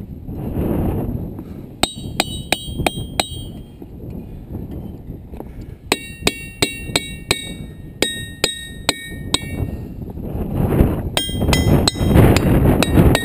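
Diabase boulders struck in quick succession with a hammer, each blow giving a short bell-like ring with several high tones: a run of about six strikes, then about a dozen, then another run near the end over a low rumble.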